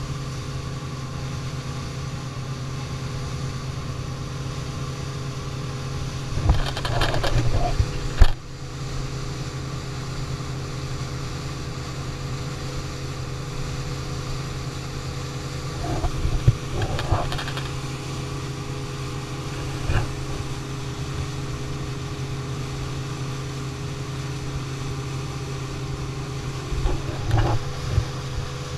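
Dive speedboat's engine running steadily at cruising speed, a constant low drone with the rush of the hull through the water. A few short louder knocks and thumps break in, about a quarter of the way in, around the middle, and near the end.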